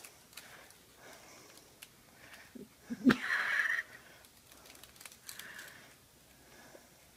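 A Great Dane taking a treat from a hand. A few soft mouth clicks come about three seconds in, then a short breathy puff, and a fainter puff a couple of seconds later.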